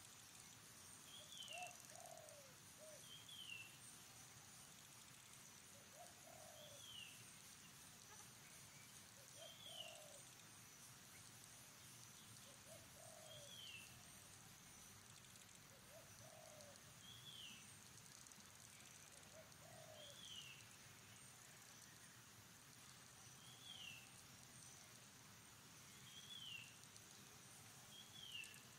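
Faint bird calls. A short, high, falling note repeats about every two seconds, and lower calls repeat about every three seconds until roughly two-thirds of the way through, all over a steady high hiss.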